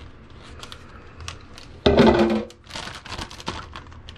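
Plastic zip-top bag crinkling as it is handled and filled with marinade, with one loud, short knock about two seconds in.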